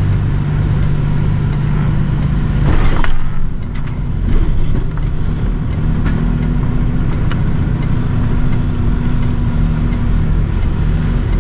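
Lorry diesel engine running steadily at low revs while the truck crawls around tight bends, with a short loud burst of hissing noise about three seconds in.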